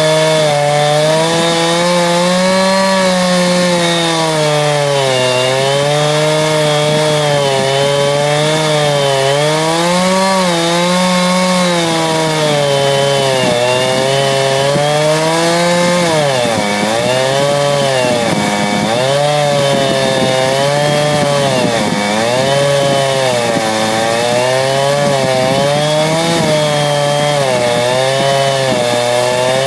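Two-stroke chainsaw ripping lengthwise through a log, held at high revs under load. Its engine note sags and recovers every second or two, and from about halfway through the dips come deeper and more often.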